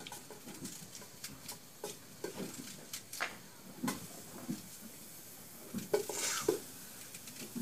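Kitchen knife cutting through an onion held in the hand, a scattered series of crisp cuts, with the chopped onion dropping into ghee in a metal pot; a brief sizzle and crackle about six seconds in.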